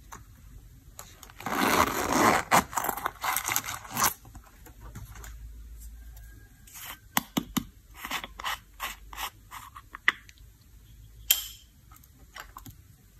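A metal zipper on a faux-leather coin purse being unzipped in one long rasping run, then a string of clicks and taps as a small plastic jar is handled and its screw lid is opened, with one sharp click near the end.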